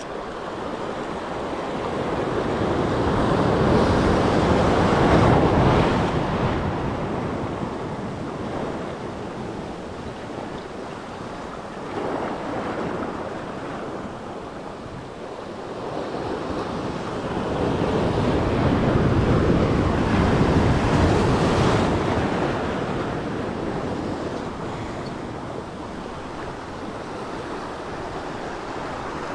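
Sea surf washing in over shoreline rocks, swelling and fading twice, loudest about five seconds in and again around twenty seconds in, with wind buffeting the microphone.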